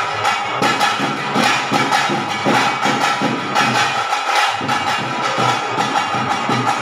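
Traditional ritual music played live: drums struck in a fast, continuous rhythm, with a steady high tone held over them.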